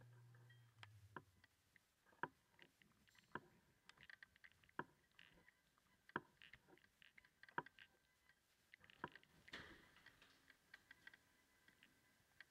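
Faint footsteps of hard-soled boots on a corridor floor: sharp heel clicks about every second and a half, with softer taps between.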